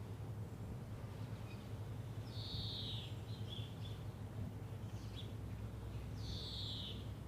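A songbird repeating a short, slightly falling call about every four seconds, twice in this stretch, with a few faint chirps between. Underneath is a steady low rumble.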